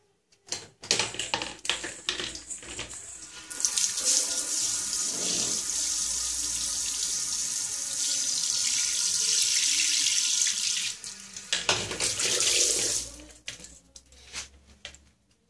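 Water from a handheld shower head spraying onto an acrylic shower tray near the drain. Uneven splashing at first, then a steady hiss for about seven seconds, then uneven splashing again before it stops.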